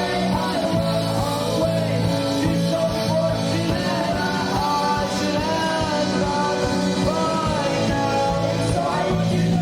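A rock band playing live, a voice singing over the band from about three seconds in.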